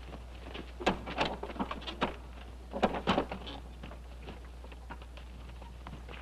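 Scattered scuffs and knocks of movement, louder in two clusters about a second in and again about three seconds in, over a steady low hum in the old soundtrack.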